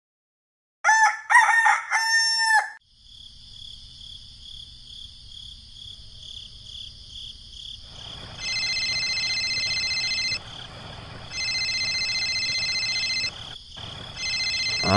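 A rooster crows once, starting about a second in. From about eight seconds in, an electronic telephone-style ringing follows in repeated bursts of about two seconds each, over a steady high tone.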